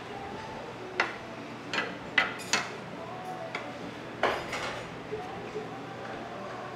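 Dishes and metal utensils clinking and clattering: about five sharp knocks with a short ring, bunched between about one and four and a half seconds in.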